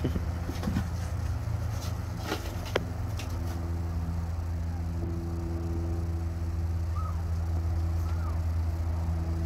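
Steady low mechanical hum throughout, with a few light knocks and clicks in the first three seconds. Two faint, short kitten mews near the end.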